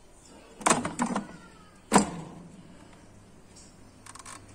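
Control dials of a Haier air fryer being turned to set it: a cluster of clicks about a second in, one sharp click at two seconds, then a quick run of small ticks near the end as a dial is turned.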